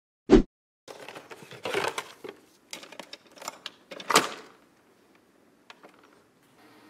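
Keurig single-serve coffee brewer being loaded: a thump at the start, then plastic clicks and rustling as a K-cup pod goes in, and a loud clack about four seconds in as the lid handle is shut. Near the end the brewer starts with a faint steady hum as it begins a brew.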